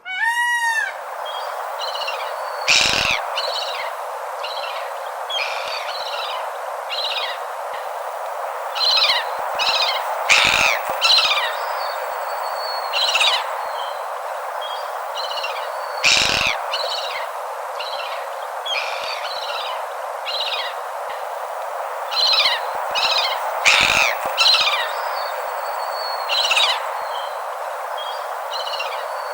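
Several birds chirping and calling over a steady hiss of outdoor ambience. A few louder, sharper calls stand out about every six to seven seconds.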